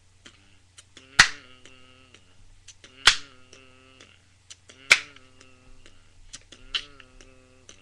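Instrumental lead-in to a song: a sharp percussive hit about every two seconds, four in all, each followed by a short held pitched tone, with lighter clicks between the hits over a steady low hum.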